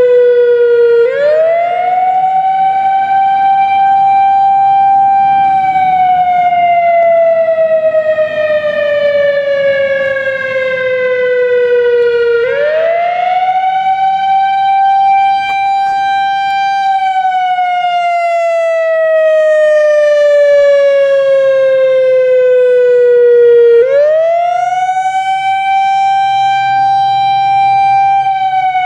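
Whelen WS 3000-series analog outdoor warning siren sounding its wail test signal, very loud. Its pitch rises quickly, holds a few seconds, then falls slowly, repeating about every eleven seconds, three rises in all.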